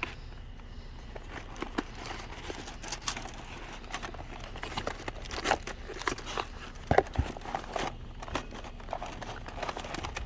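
Hands rummaging through boxes of electrical cords and odds and ends: irregular rustling, crinkling and light clicks of handled items, with a duller knock about seven seconds in.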